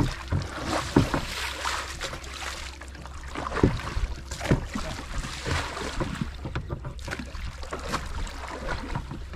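Oars of a rowing boat dipping and splashing in river water, with irregular knocks, over a steady rumble of wind on the microphone.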